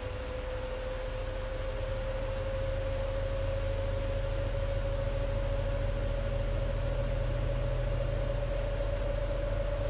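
Sharp ES-TX8E top-loading washer-dryer in its spin cycle: a steady motor whine climbing slowly in pitch, over a low rumble and a hiss.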